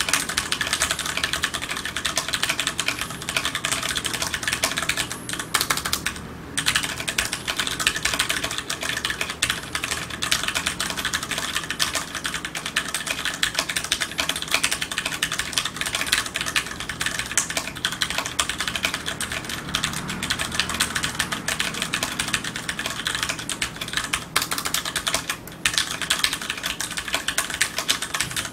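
Fast, continuous typing on a TEX Beetle mechanical keyboard with tactile, non-clicky Cherry MX Brown switches, with a steady stream of keystrokes broken by two brief pauses.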